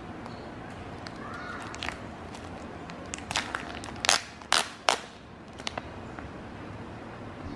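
Clear plastic wrapper crinkling and crackling as it is peeled off a block of precooked noodles, with a handful of sharp crackles about halfway through over a steady background hiss.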